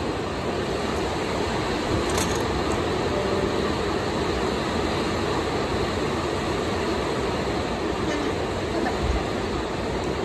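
Steady low rumbling noise, unbroken and without rhythm.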